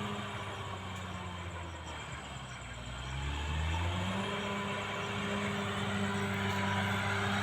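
Caterpillar D6R XL bulldozer's diesel engine running while working; its note sags about two seconds in, then picks back up and holds steady.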